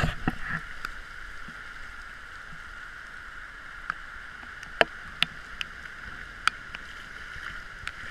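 Steady rush of heavy rain and running floodwater, with a few sharp ticks scattered through the middle.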